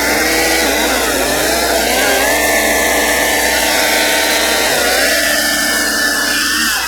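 Ryobi 40V cordless chainsaw running under load in a thick log, its motor whine sagging and recovering in pitch as the chain bogs in the wood, changing near the end. The saw is smoking and cannot finish the cut, which the owner thinks might be down to a twisted bar.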